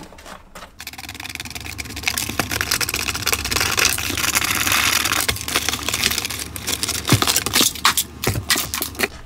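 Cardboard packaging scraping and rustling, with many small plastic clicks, as a toy RC side-by-side is worked loose from its cardboard tray.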